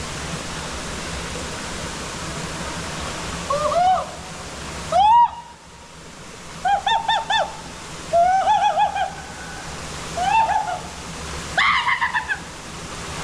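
Steady rushing of falling and flowing water. From about four seconds in, it is broken by short high calls that rise and fall, mostly in quick bursts of three to six notes, repeated four or five times.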